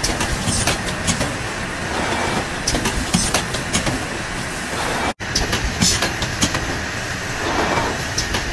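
Automatic cosmetic lotion filling machine running: a continuous mechanical clatter from the pneumatic air-blowing and filling heads and the bottle conveyor, with repeated short bursts of air hiss and knocks as the heads cycle.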